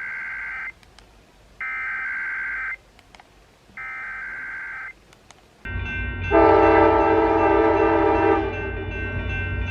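Emergency Alert System SAME header: three bursts of warbling data tones, each about a second long and a second apart. Then, near six seconds in, a loud steady multi-tone sound begins: the alert's attention signal, announcing a required monthly test.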